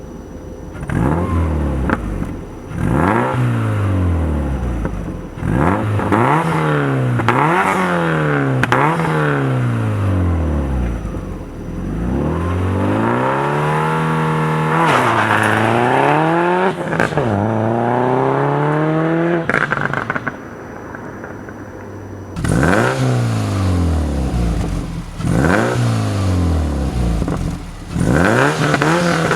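2007 Subaru Legacy GT Spec B's turbocharged flat-four, breathing through equal-length headers and a Megan Racing catback exhaust, revved again and again in quick blips that rise and drop back. Around the middle it holds a longer, slower climb, then idles briefly before the blips start again.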